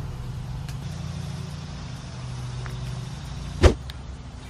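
Steady low hum of a motor vehicle's engine, with one sharp click about three and a half seconds in.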